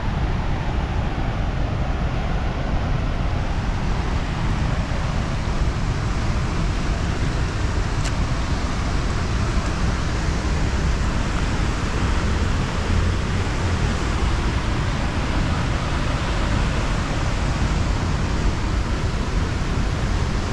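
A river in flood rushing past, a loud, steady roar of water with a strong low rumble.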